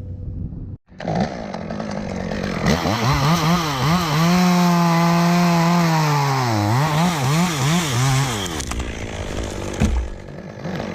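Gas chainsaw revving in quick bursts, then held at high speed for about two seconds before its pitch drops and it revs in short bursts again, stopping a couple of seconds before the end. A single knock follows near the end.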